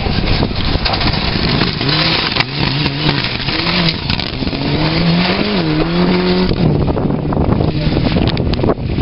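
Rally cars at speed on a gravel stage: engines running hard, the engine note rising and falling through the passes, over a heavy rush of tyre and gravel noise.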